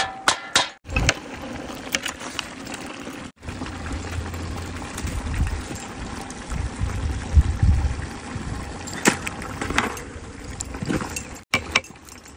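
Metal ladle and bowl clinking and scraping against a large aluminium cooking pot, a cluster of sharp clinks at the start and a few more later. Between them there is a steady outdoor hiss with a low rumble.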